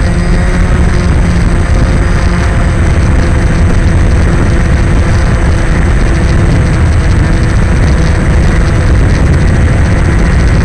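DJI Phantom quadcopter hovering, its motors and propellers droning steadily as heard from the camera it carries, with a heavy low rumble underneath.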